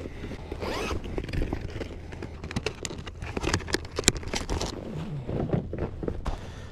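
Fishing gear being handled in a kayak: a run of quick scratchy clicks and scrapes.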